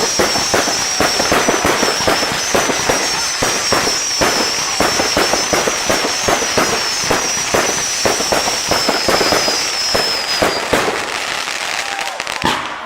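Fireworks firing in a dense, continuous barrage of rapid bangs and cracks, with a high wavering whistle over the top that stops about ten seconds in. The barrage dies down near the end.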